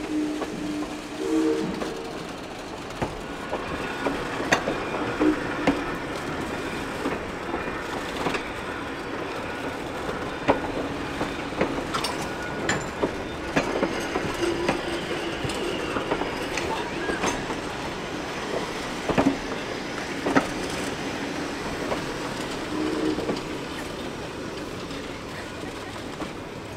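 Heritage wooden passenger coaches rolling past close by: a steady rumble of steel wheels on the rails, with frequent irregular clicks and knocks as the trucks cross rail joints.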